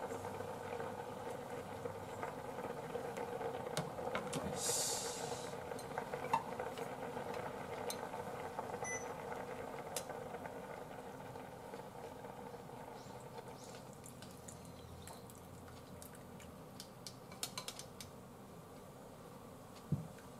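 Small saucepan of nameko mushroom soup simmering, the bubbling slowly dying down, with scattered clinks and scrapes of a metal ladle and a spatula against the pot and a ceramic bowl.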